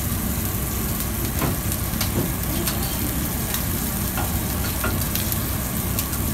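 Chicken and squid sizzling in hot pans, a steady frying hiss over a low rumble, with a few light clicks of metal tongs.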